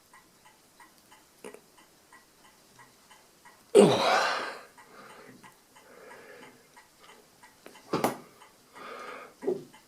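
Gloved fingers working the gummed-up detent levers on the shaft of an Addo Multo Model 3 mechanical calculator, giving soft handling noises over a steady faint ticking of about three ticks a second. A loud rushing burst comes a little under four seconds in, and a sharp click about eight seconds in.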